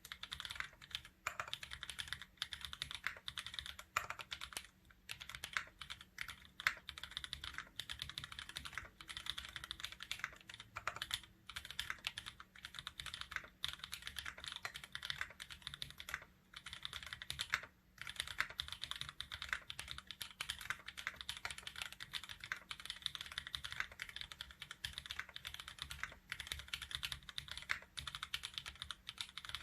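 Continuous fast typing on a custom 60% mechanical keyboard with lubed linear switches (Kailh burgundy stems in Gateron milky yellow housings, Gateron yellow springs), a carbon fiber plate, a silicone pad between PCB and plate, and GMK keycaps. Dense run of key strokes with a few brief pauses.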